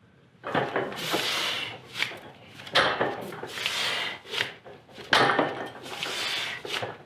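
Heavy, forceful breathing of a strongman straining through a barbell deadlift: three long, noisy breaths about two and a half seconds apart.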